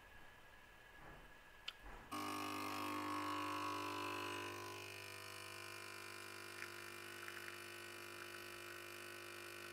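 Espresso machine's pump switching on about two seconds in and buzzing steadily as espresso pours into the cup. The buzz is louder for its first couple of seconds, then settles a little lower.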